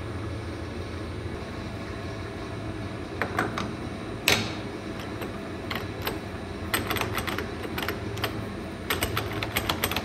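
Metal clicks and taps from handling a lathe's quick-change tool post and its lever, over a steady low hum. The clicks start about three seconds in, with one sharp click a little past four seconds and quick runs of small ticks later on.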